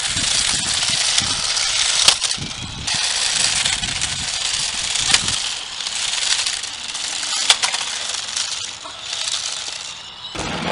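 Toy remote-control cars running: small electric motors buzzing and hard plastic wheels scraping and rattling over the ground, the noise rising and falling as they speed up and turn, with a few sharp clicks.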